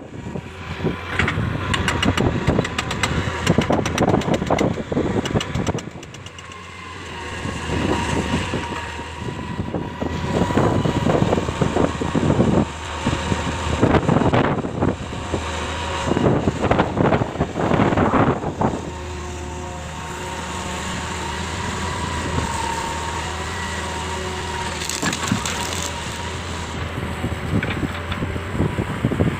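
Hitachi 200LC excavator working: its diesel engine and hydraulics run steadily with a faint whine, while irregular loud crunching and scraping come and go through the first two-thirds, then the machine runs on more evenly.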